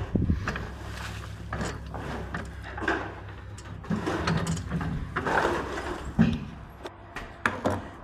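Irregular scraping, rustling and knocking of hand work with tools and materials, with a few sharp knocks near the end.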